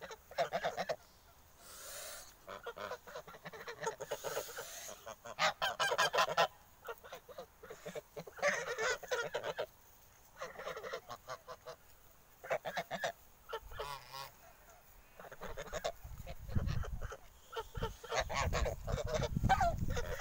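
A flock of domestic geese honking in repeated bouts, several birds calling over one another. A low rumble joins in for the last few seconds.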